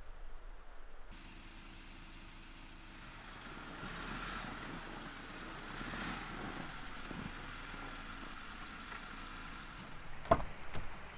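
A steady vehicle hum that swells and eases over several seconds, then a single sharp knock near the end.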